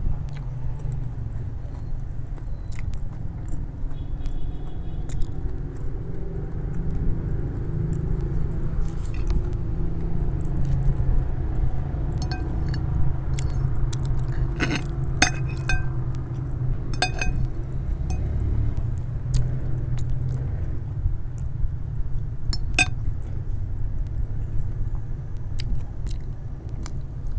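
A person chewing and biting mouthfuls of instant noodles with fried egg, with a fork and spoon clinking sharply against a glass plate a few times around the middle and near the end. A steady low rumble runs underneath.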